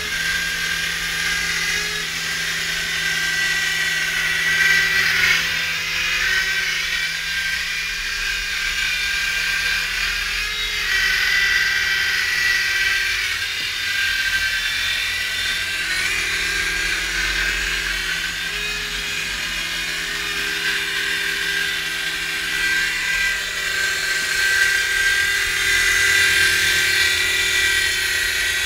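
Small electric motors and spinning rotors of a radio-controlled toy helicopter in flight, making a steady high-pitched whine whose pitch drifts slightly up and down as the throttle changes.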